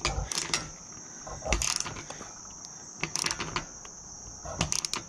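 Socket ratchet wrench clicking in four short runs of rapid ticks, about a second and a half apart, as a roof-rack mount bolt is snugged down. A steady high drone of crickets runs behind it.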